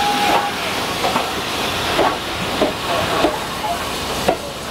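BR Standard Class 5 4-6-0 steam locomotive running past close by with steam hissing. A steady high tone stops about half a second in. Its coaches then roll by with short sharp clicks and squeals from the wheels about once a second.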